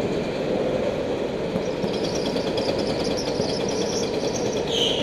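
Go-kart running at speed, heard from a camera mounted on the kart: a steady, rough engine drone, with a brief high squeal near the end.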